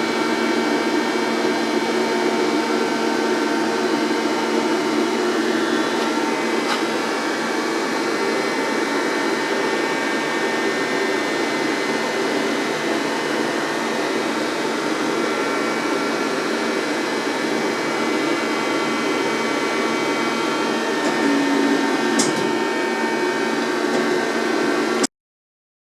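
EMCO Emcoturn 365 CNC lathe running: a steady machine hum with several whining tones and a couple of faint clicks, cutting off suddenly near the end.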